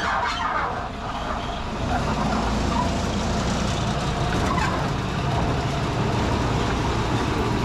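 Small narrow-gauge sugar-railway diesel locomotive's engine running as it pulls along the track, a steady low rumble that grows louder from about two seconds in as it draws near.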